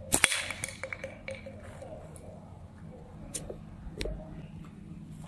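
Pulley slingshot firing a steel ball: a sharp snap of the bands releasing just after the start, the loudest sound. Fainter clicks follow, with one more sharp click about four seconds in.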